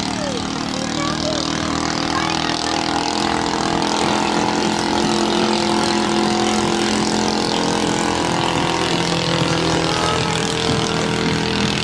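Racing outrigger boat's Kress engine running flat out at high speed, a steady whine that rises a little in pitch and loudness about three seconds in.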